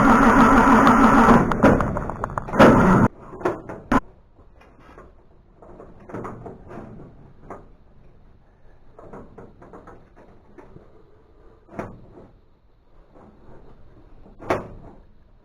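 Background music fading out over the first three seconds, followed by scattered irregular knocks and clunks of handling and work on the truck.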